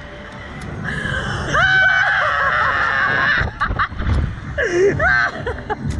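A young woman laughing and letting out several high, gliding shrieks, over a steady rush of wind noise.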